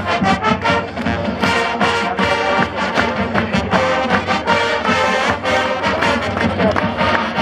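Marching band playing live, brass carrying the tune over a steady drum beat.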